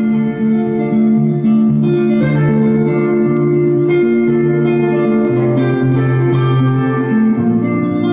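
Electric guitar played live as an instrumental passage: picked notes ring on over a low bass line that steps between notes.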